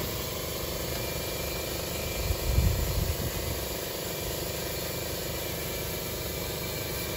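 Steady mechanical hum like a motor running, with a brief low rumble about two and a half seconds in.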